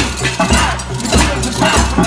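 Rhythmic percussion: a deep beat about every half second, with metallic clinking and rattling over it.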